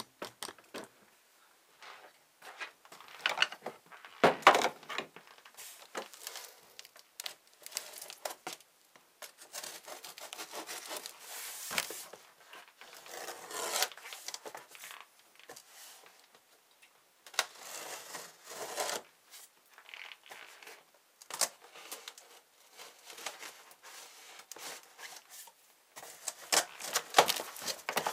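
Cardboard box being opened and handled, with irregular tearing, rubbing and scraping of cardboard and occasional short knocks.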